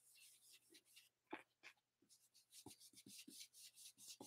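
Stampin' Up! blending brush rubbing ink onto cardstock in quick, faint, even strokes, about five a second, from about two seconds in, with a soft knock just over a second in.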